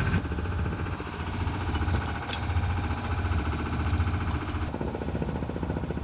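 Sailboat's inboard engine running steadily under way, a low even hum.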